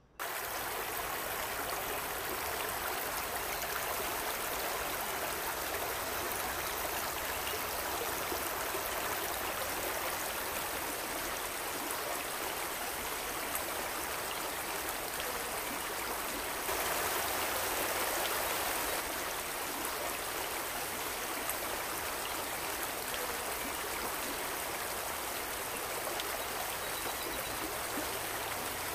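A small waterfall cascading over rocks into a stream: a steady rush of water that starts suddenly and grows slightly louder for a couple of seconds a little past the middle.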